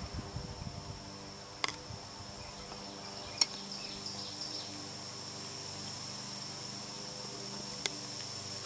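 Insects chirring steadily and high-pitched in the background, with three sharp metallic clicks as a metal rod lifts a piston out of a can of carbon-dissolving parts dip and knocks against the piston and can.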